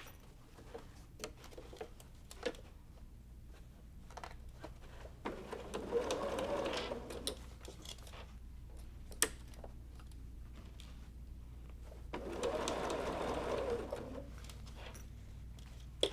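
Sewing machine stitching binding onto a quilted bag, running in two short louder spells, about five seconds in and again near the end, over a steady low hum, with light clicks in between as the work is handled.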